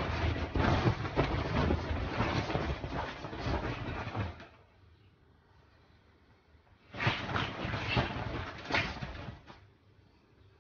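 A pug scuffling with a stuffed toy on a bed: rustling bedding and short knocks that stop about four seconds in, then a second burst of scuffling about seven seconds in.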